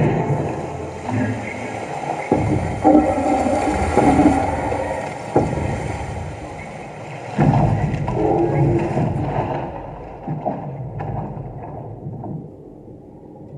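Film sound mix of deep booming thuds and low rumbling, with a sharp, very deep boom about seven seconds in. The sound thins and fades toward the end.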